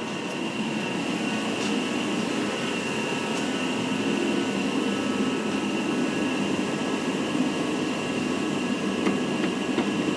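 A machine running steadily: continuous mechanical noise with several steady high tones over it, and a few faint ticks near the end.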